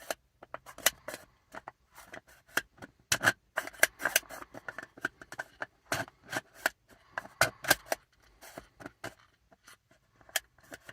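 Hands working a 3D-printed plastic maze puzzle box, twisting and sliding its parts through the maze: irregular clicks and short scrapes of plastic on plastic.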